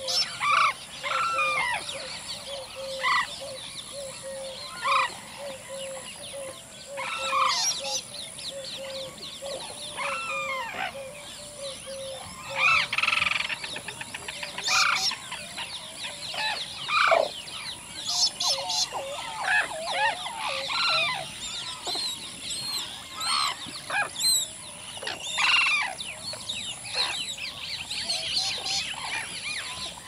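Sarus cranes giving courtship display calls, a series of loud trumpeting calls, mixed with the calls of other birds. A steady high cicada drone runs underneath, and a short low note repeats about twice a second through the first half.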